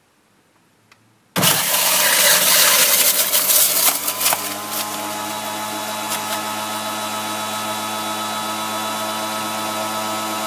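Electric centrifugal juicer running as it juices figs. It starts suddenly about a second and a half in, loud and rough for the first few seconds, then settles into a steady motor hum with a constant pitch.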